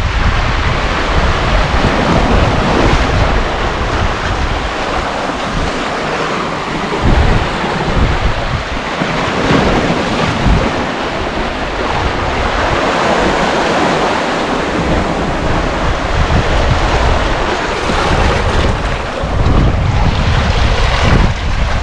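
Strong wind buffeting the microphone in uneven gusts over waves washing against sea rocks.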